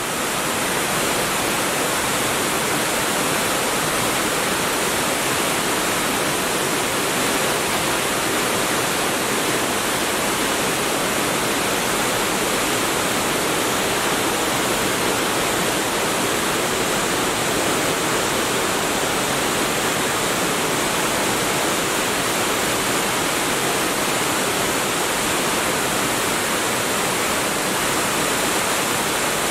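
Small waterfall and brook rushing steadily over rocks in a stone cave, a loud, even roar of water that fades in at the start.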